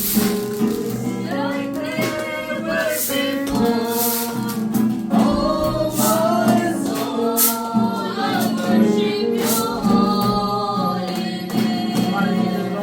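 Gospel worship song: a group of voices singing together over instrumental accompaniment, with sharp percussion hits every second or two.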